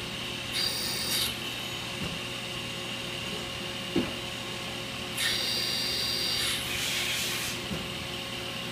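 CNC turning centre with live tooling machining a steel cam: a steady spindle whine and hum, with two spells of higher, scraping cutting noise as the rotating tool bites the steel, and a sharp click about four seconds in.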